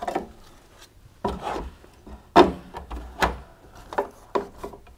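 A tumble dryer's sheet-metal heater assembly being handled and set against the dryer's steel back panel: a string of short knocks and scrapes, the sharpest about two and a half seconds in.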